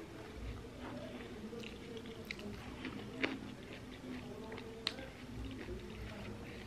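Close-miked chewing and mouth sounds of a person eating fried pork with her fingers, with scattered small smacks and two sharper clicks, the loudest about three seconds in.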